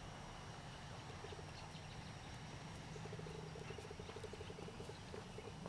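Faint outdoor ambience. About three seconds in, an animal gives a rapid pulsing trill lasting about two seconds.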